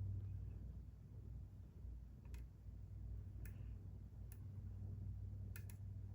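Lock pick and tension wrench working in a Kwikset SmartKey Gen 2 lock: a handful of faint, sharp metallic clicks spread over a few seconds, two in quick succession near the end, over a low steady hum.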